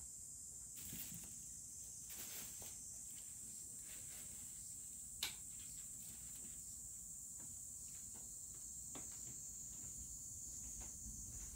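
Quiet room tone under a steady high-pitched buzz, with scattered faint ticks and one sharp click about five seconds in.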